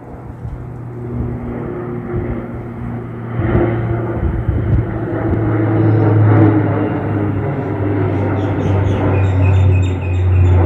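De Havilland Canada Dash 8 Q400 turboprop climbing out low overhead after takeoff. Its deep propeller drone grows louder from about three seconds in and drops slightly in pitch near the end as it passes.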